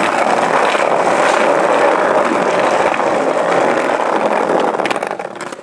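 Skateboard wheels rolling over brick paving, a steady rough rumble that eases off shortly before the end.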